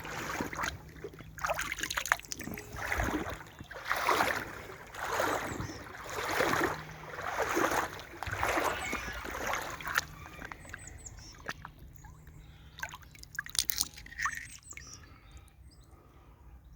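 Wellington boots wading through a shallow brook, the water sloshing with each step about once a second, stopping about ten seconds in. Small birds chirp faintly near the end.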